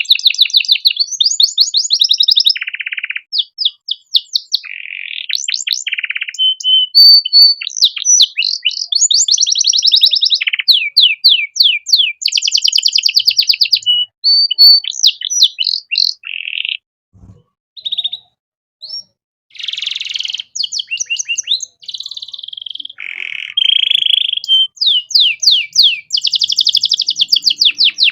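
Male domestic canary singing a fast, varied song of rapid trills and rolls of quickly repeated notes, with a short pause about seventeen seconds in.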